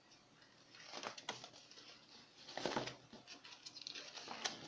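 Folded paper sheets rustling and crinkling in the hands as they are leafed through and a large sheet is unfolded, in scattered bursts that pick up near the end.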